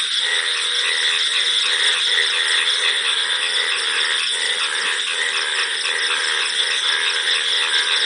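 Night chorus of crickets chirping in a dense, rapidly pulsing high trill, with frogs calling underneath in a lower, wavering croak.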